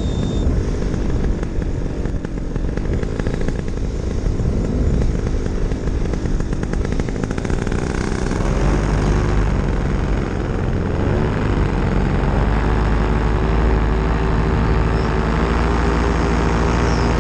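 Paramotor engine and propeller running in flight, with wind rushing over the microphone. About halfway through, the engine note becomes steadier and a little louder, then rises slightly in pitch a few seconds later.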